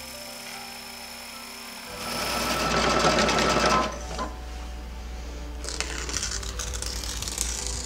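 Computerized embroidery machine sewing a tack-down stitch on a quilt block, the needle running in a quick, even rhythm. About two seconds in it grows louder for a couple of seconds.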